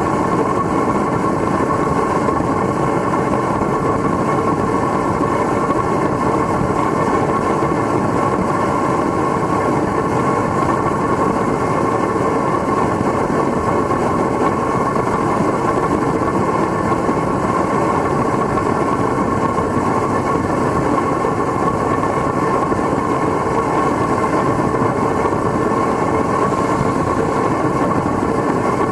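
Homemade forced-air propane foundry burner running, a loud, steady rush of flame and air that holds even throughout.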